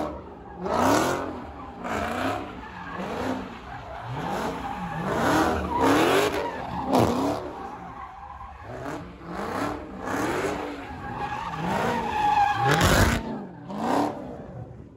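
Dodge Charger Hellcat's supercharged V8 revving up and down about once a second, with tyres squealing and skidding as the car spins donuts. The sound fades near the end.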